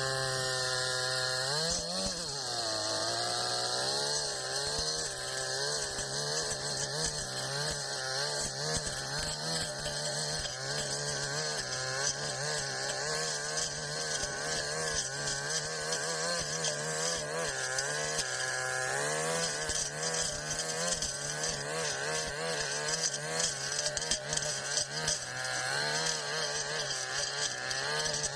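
Brush cutter engine running at high revs, rising as it is throttled up at the start, then its pitch wavering up and down as the throttle is worked and the blade meets the grass.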